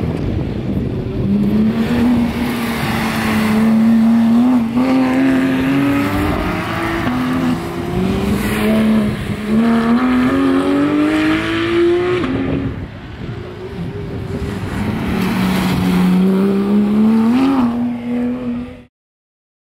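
Porsche 911 GT3 (991.2) with its naturally aspirated 4.0-litre flat-six accelerating hard on track, the engine note climbing in pitch through each gear and dropping back at the upshifts, several times over. It eases off briefly about two-thirds through, pulls hard again, then cuts off suddenly near the end.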